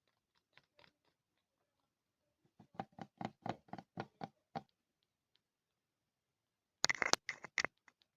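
Tapping on a mirror: a few faint taps, then a quick run of about ten taps at roughly five a second, and near the end a short cluster of sharper, brighter clicks.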